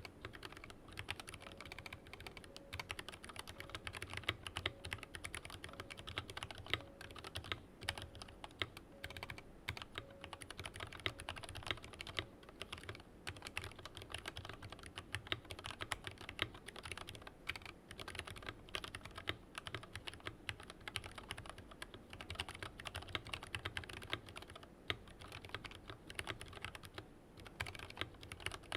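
Continuous fast typing on a Tokyo60 V3 aluminium-cased keyboard with lubed, filmed Lavender linear switches, full-nylon housings, and stock keycaps. A dense, uneven run of key clicks and bottom-outs, several a second.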